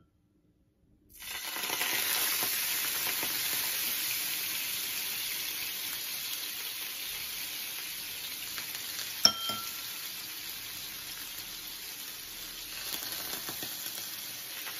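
Water poured into a hot nonstick frying pan around soufflé pancakes, starting to sizzle suddenly about a second in, then hissing steadily and slowly fading as it boils off. A metal spoon clinks once against the pan partway through.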